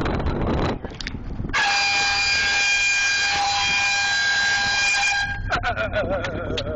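Wind on the microphone, then an air horn sounds one long steady blast of about four seconds that cuts off abruptly, followed by a shorter wavering tone.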